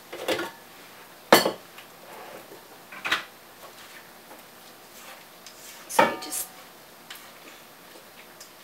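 Sharp clanks and knocks as a stand mixer is taken apart, its head tilted up and its stainless steel mixing bowl lifted off the base: about five knocks, the loudest a little over a second in and about six seconds in, the later one with a short metallic ring.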